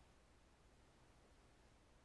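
Near silence: a faint steady hiss with a low rumble underneath.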